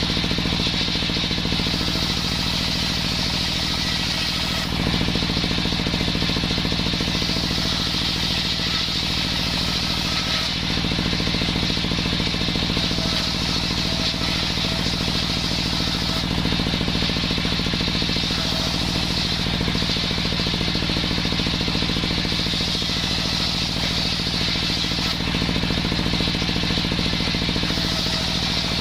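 Small engine of a homemade circular saw running steadily at speed, with a rattling mechanical note. The higher hiss and whine shift slightly every few seconds.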